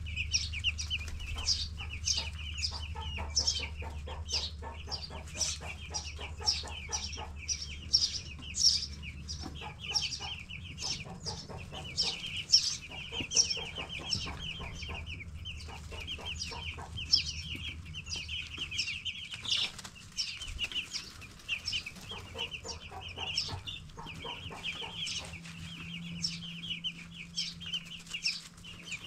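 A flock of 10-day-old broiler chicks peeping continuously, many short high chirps overlapping. A low steady hum runs underneath and fades out about two-thirds of the way through.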